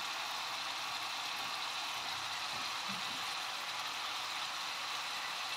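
Hot oil sizzling steadily in a frying pan as a lump of instant rawon spice paste fries in it.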